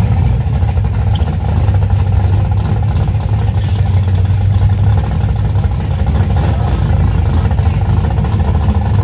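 Drag cars' engines idling, among them a Ford Mustang SVT Cobra's V8, a loud, steady, choppy low rumble.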